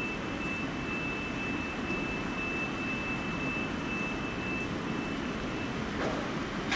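ÖBB Railjet train pulling out of the station with a steady low rumble. A thin, steady high-pitched tone runs over it and stops about six seconds in, followed by a faint click.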